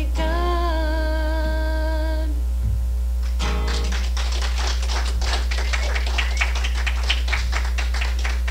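A woman's voice holding the last sung note of a worship song for about two seconds, then light, scattered hand clapping from a small group, starting a little over three seconds in. A steady low hum runs underneath.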